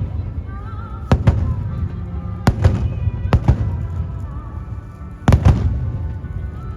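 Aerial fireworks exploding in a series of sharp bangs about a second apart, with the loudest cluster about five seconds in, over a low rumble and music.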